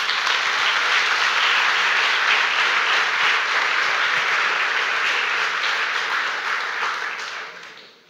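Audience applauding, a steady clapping that fades away over the last second or so.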